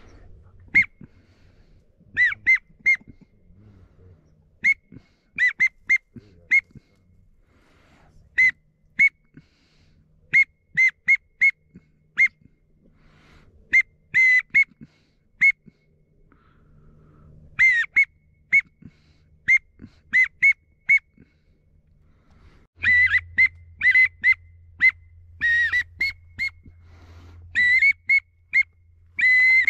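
Duck-like whistled peeps: short high notes in quick runs of two to five, repeated every second or two, some falling slightly in pitch. A low steady rumble joins about three quarters of the way in.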